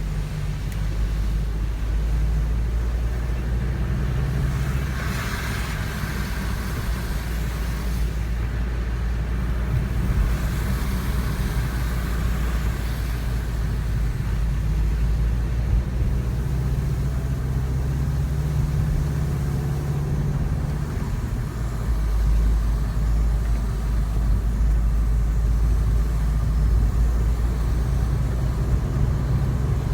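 Subaru WRX STI (VAB) driving along a road: a steady low engine drone with road noise, and a rush of higher noise twice, about five and ten seconds in.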